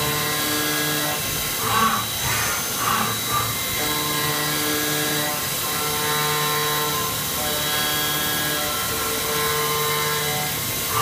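Vertical CNC machining centre milling aluminium: steady machine hum with several held tones that shift every second or two, and a few short rough bursts of cutting noise about two to three seconds in.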